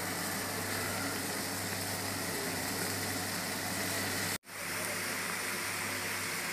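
Lemongrass stalks boiling in a small pot of water on a stove: a steady bubbling hiss with a low hum, cutting out for an instant about four seconds in.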